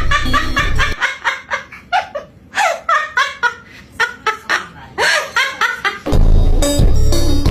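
A rapid run of pitched, laugh-like animal calls, several a second with some falling in pitch, lasting about five seconds. It falls between bursts of bass-heavy music with a drum beat, which plays for the first second and returns about six seconds in.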